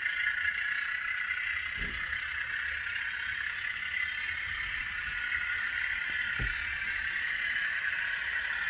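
DCC sound decoder (ESU LokSound 5) in an N gauge Class 74 model locomotive playing its locomotive running sound through a small sugar-cube speaker, a steady sound as the model pulls its coaches along the track. Two dull thumps come about two seconds in and again near six and a half seconds.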